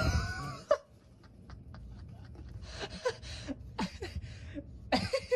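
A brief high, wavering whine at the start, then short breathy bursts of stifled laughter.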